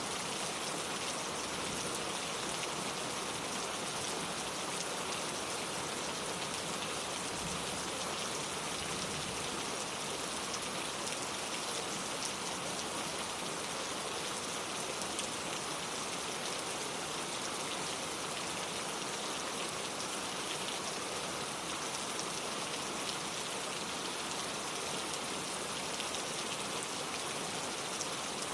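Steady, even rain falling, a dense continuous patter of raindrops on surfaces.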